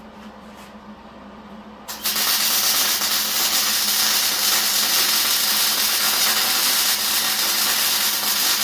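Electric arc welding on steel: about two seconds in the arc strikes suddenly and then crackles and hisses steadily as a short weld bead is laid.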